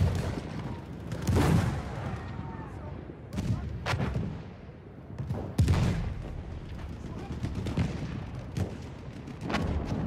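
Slow, irregular footsteps crunching over rubble and snow, about eight heavy steps and thumps a second or two apart, over a low rumble of handling noise.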